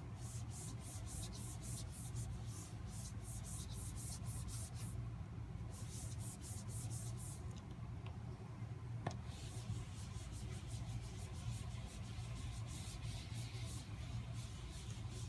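Damp cloth scrubbing back and forth across a wet-wipe marker menu board to lift the marker ink, a run of quick rubbing strokes at about three or four a second that stops briefly twice, with one light tick in the middle pause. A steady low hum lies underneath.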